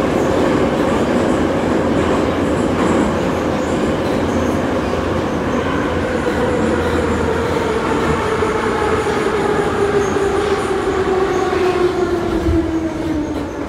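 Minsk Metro train running through the tunnel, heard from inside the car: a loud, steady rumble of wheels and running gear. From about midway the motor whine falls steadily in pitch as the train slows for a station.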